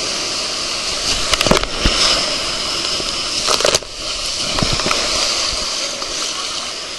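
Water rushing and splashing around an inflatable ring riding down a water-slide channel, heard close up with spray hitting the microphone. A few sharp knocks come about a second and a half in and again near four seconds.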